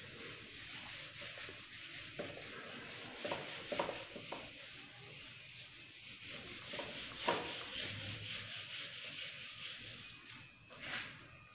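Whiteboard eraser rubbing across a whiteboard: a faint, continuous scratchy swish from repeated wiping strokes, with a few light knocks.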